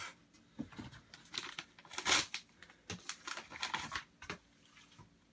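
Plastic card sleeves and packaging crinkling and rustling as cards are handled, in a run of short bursts, loudest about two seconds in and dying away near the end.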